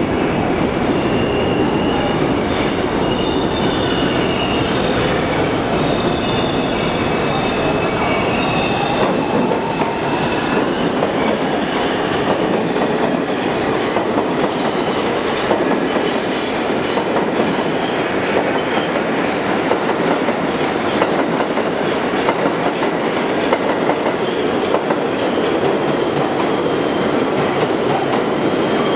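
A New York City subway train running into and through a station. Its wheels squeal in high, thin tones during the first third, then clatter over rail joints in a rapid run of clicks as the cars pass.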